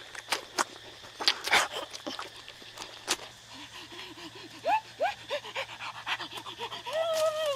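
Wet chewing and lip-smacking clicks from a man eating egg with his fingers, mixed with short hummed, whine-like vocal sounds and a longer drawn-out "mmm" near the end.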